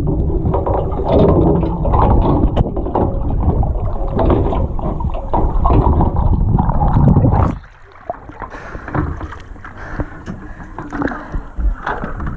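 Water noise heard by a camera held underwater: a loud, muffled, low rush. About seven and a half seconds in it drops suddenly to thinner splashing and sloshing as the camera comes up out of the water.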